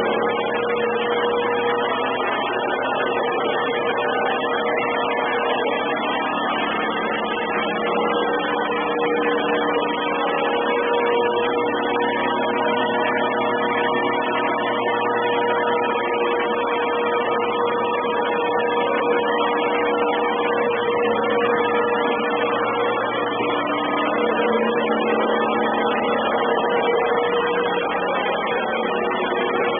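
Samsung robot vacuum cleaner running: a steady motor-and-fan whine, heard heavily distorted through the camera's microphone.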